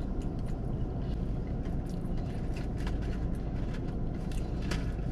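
Steady low rumble of a car idling, heard inside the cabin, with faint scattered clicks over it.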